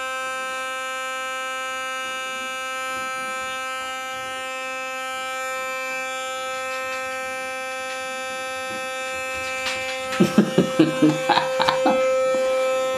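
Electric toothbrush running with a steady buzz. About ten seconds in, a quick run of short, uneven sounds cuts in over it for a couple of seconds.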